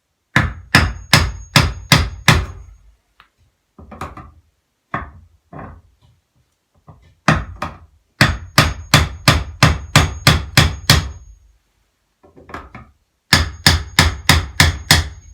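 Hammer tapping on a small crowbar hooked under a nail head, prying a nailed-in electrical box out from a wall stud. The strikes come in three runs of two to three a second, with a few single taps between, and a faint high metallic ring hangs over each run.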